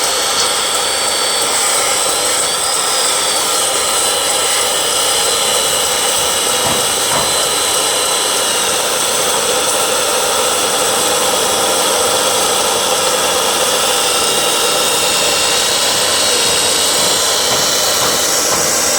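A power tool running continuously at high speed, a loud steady noise with a high whine that wavers slightly in pitch.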